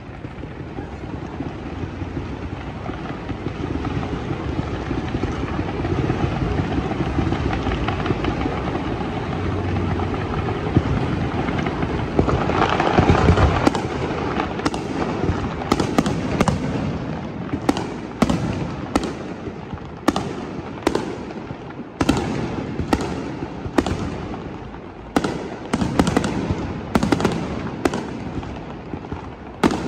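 Aerial fireworks display: a dense, continuous rumble and crackle of bursting shells builds to a loud peak about halfway through. After that come sharp, separate bangs, several a second.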